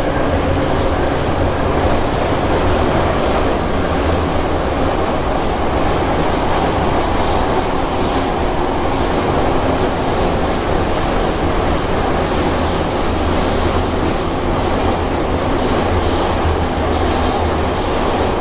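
Moscow Metro train running between stations, heard from inside the carriage: a steady, loud rumble of wheels on rails with a low hum underneath and scattered clicks and rattles throughout.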